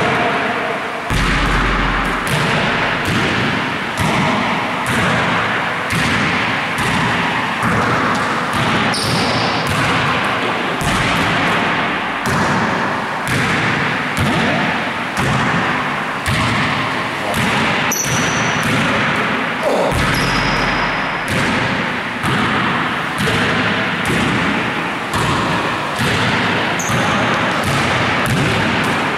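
A basketball being bounced, passed and caught, with repeated thuds about once or twice a second, echoing. A few short high squeaks are mixed in.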